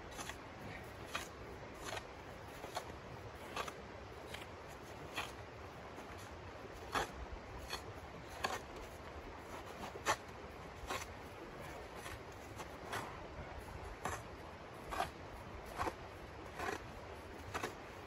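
A small hand shovel digging and scraping into crusty snow: short crunchy scrapes at an uneven pace of about one a second, over a steady rushing background.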